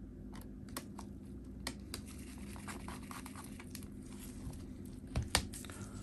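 Faint clicks and scratchy handling sounds of a small screwdriver and gloved hands working the trackpad screws of an opened MacBook Air, with two sharper clicks about five seconds in.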